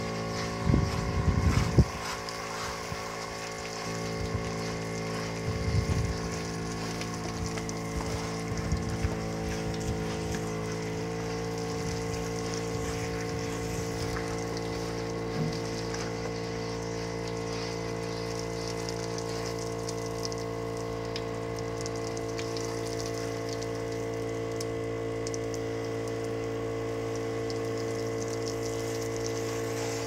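Small electric pump of a backpack water-fed pole system running with a steady hum, feeding water to the brush, over a faint hiss of water spray. A few knocks from the brush and pole come in the first ten seconds, and the pump's tone shifts slightly about eleven seconds in.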